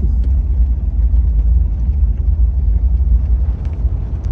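Steady low rumble of a car on the move, heard from inside the cabin: engine and road noise.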